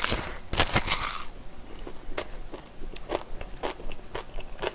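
Biting into a spoonful of bibimbap wrapped in a dry laver (gim) sheet: a dense, crisp crackle of the seaweed in the first second or so, then scattered soft chewing clicks.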